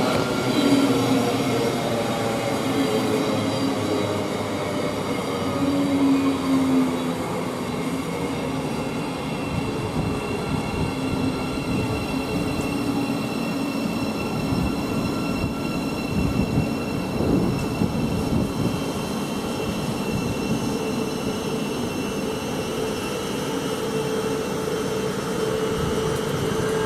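Thameslink Class 700 electric multiple unit pulling into the platform, its motor whine falling in pitch as it slows over the first several seconds. It then stands at the platform with a steady hum from its equipment.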